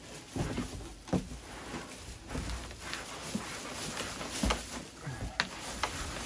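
Packaging being handled: rustling plastic bag and irregular knocks and scrapes of a cardboard box as a boxed 3D printer is unpacked.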